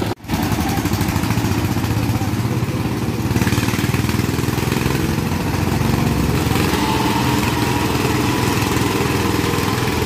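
Power tiller's single-cylinder diesel engine running steadily under load as it pulls a stuck, straw-laden trolley. The sound drops out briefly just after the start.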